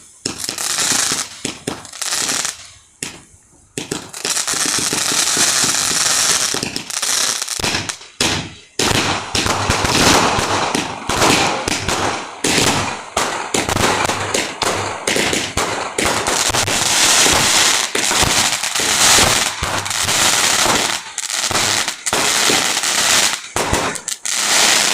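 A 130-shot firework barrage box firing in rapid succession: a dense, loud run of bangs and crackling, with brief lulls a few seconds in and again around eight seconds in.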